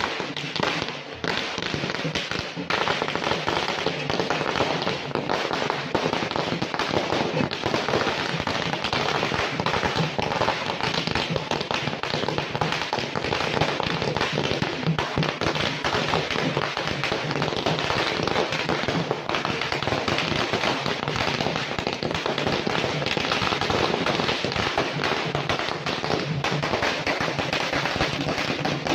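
Firecrackers going off in a rapid, continuous string of bangs with no let-up.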